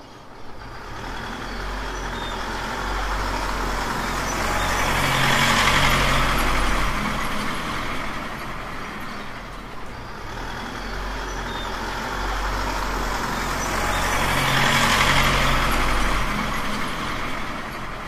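Truck engine sound: a steady low drone under a noisy rush that swells louder twice, about a third of the way in and again near the end.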